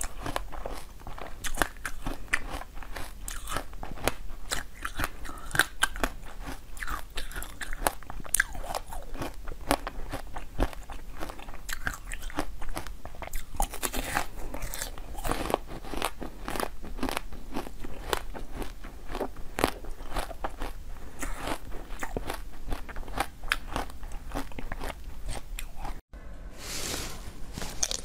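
Close-miked crunching and biting of frozen basil-seed ice cubes, many sharp cracks in quick, uneven succession. The sound cuts out briefly near the end, then another bite follows.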